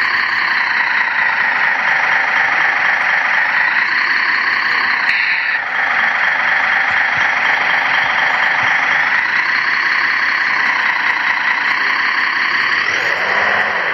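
Radio-controlled model heavy-haul tractor trucks running with a steady engine-like drone. The sound dips briefly partway through, and its pitch rises near the end.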